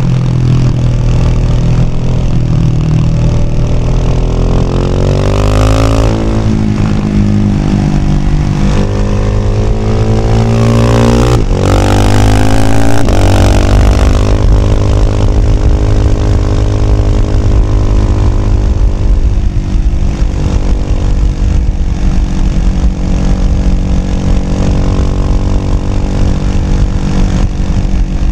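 Husqvarna Vitpilen 701's single-cylinder engine through a Shark SRC 4 slip-on exhaust, heard from the bike while riding. The revs climb and drop back sharply twice, as at upshifts, then the engine holds a steady cruise.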